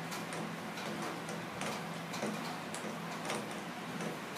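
Fingertips patting liquid foundation onto the face close to the microphone: light, uneven taps about two a second.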